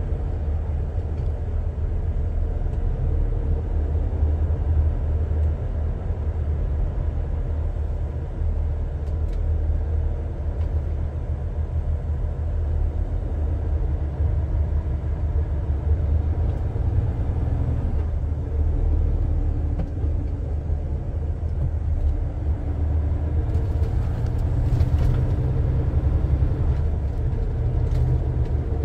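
Engine and road rumble of a lorry heard from inside its cab as it moves slowly in traffic: a steady low rumble with a hum that wavers in pitch.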